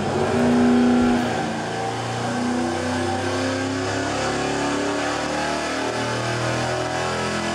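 350 small-block Chevy V8 running at full load on an engine dynamometer during a power pull, its revs climbing steadily from about 3,000 toward 4,500 rpm.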